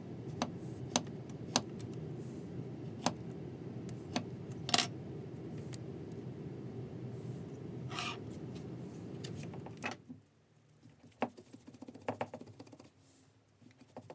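Sharp clicks and light taps of small wooden pieces and a hand tool being handled and set down on a wooden workbench, over a steady low hum. The hum stops suddenly about ten seconds in, leaving a few fainter clicks of tool handling.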